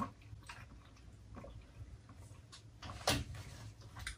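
Quiet mealtime handling sounds: scattered small clicks and rustles of paper food wrappers, with one louder short knock about three seconds in.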